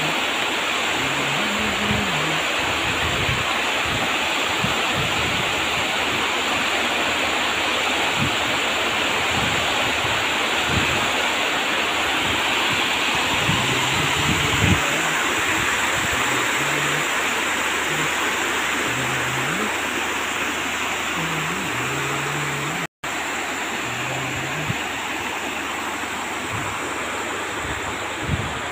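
Steady rush of water pouring down a stepped cascade channel of tiled steps. The sound drops out for an instant about three-quarters of the way in, then the rushing carries on slightly softer.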